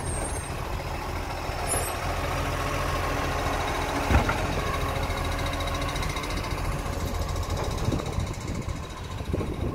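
Iveco side-loader garbage truck's engine running steadily while its hydraulic bin-lift arm works, with a single knock about four seconds in.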